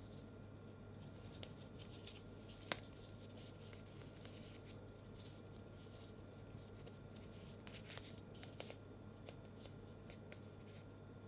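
Faint handling noise: fingers gripping and turning two vinyl Funko Pop figures, light rubbing with small clicks, one sharper click about three seconds in and a few more near eight seconds, over a low steady hum.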